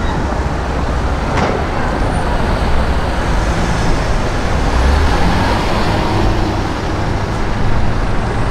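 Steady city street traffic: car engines running and passing at low speed, mostly a low, even sound with no single standout rev.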